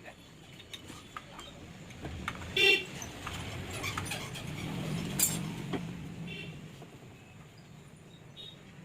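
A motor vehicle passes, its low rumble swelling and then fading over a few seconds. A brief, loud horn-like toot comes just before it, and small metallic clicks are scattered throughout.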